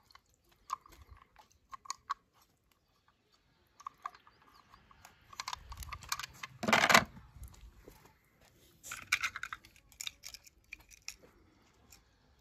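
Die-cast toy cars handled by hand, with scattered light clicks and rustles. A louder clunk comes about seven seconds in, as the toy fire truck is set into a plastic tub.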